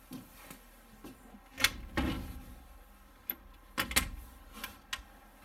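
Clicks and knocks of a window latch and frame being worked and opened by hand, with a heavier thud about two seconds in and two sharp knocks near four seconds.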